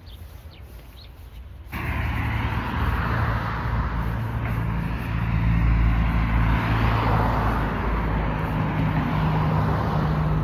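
Motor vehicle running: a steady low engine hum with a rushing road or wind noise. It cuts in suddenly about two seconds in and then holds steady and loud.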